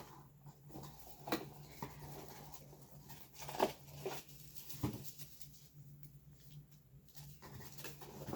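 Faint handling noises from shoes and a cardboard shoe box: a few separate taps and rustles spread out over several seconds, over a steady low hum.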